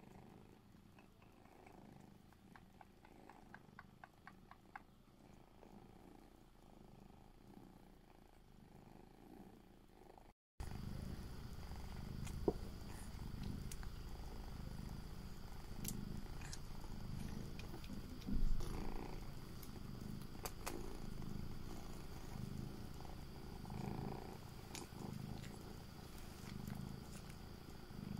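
Domestic cat purring in a slow, regular rhythm, swelling with each breath. The purring is quieter at first and louder after a cut about a third of the way in, with a few faint clicks and one brief knock.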